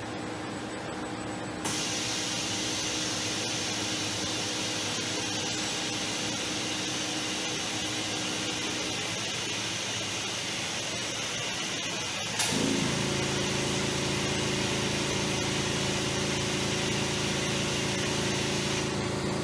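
Industrial robot arm with a suction-cup gripper running a programmed pick-and-place test. A steady hiss switches on abruptly about two seconds in. About twelve seconds in there is a sharp click, and a steady multi-tone machine hum then joins the hiss.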